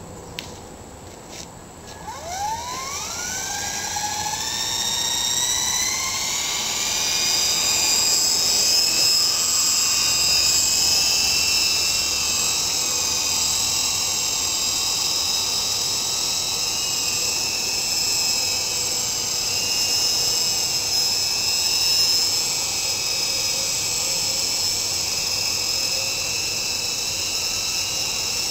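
Small electric RC helicopter (Hummingbird fixed-pitch) spinning up: about two seconds in, its motor and rotor start with a whine that climbs steeply in pitch over a few seconds, then settles into a steady high whine at flying speed.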